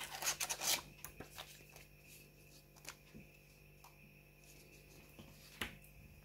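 Paper sleeves and a clear plastic phone case rustling and crinkling as they are handled, densest in the first second, then a few light clicks and one sharp tap near the end.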